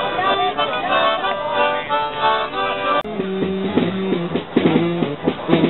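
Live music: a small hand-held melody instrument plays a reedy tune, then an abrupt cut about three seconds in switches to a different piece with lower, regularly repeated notes.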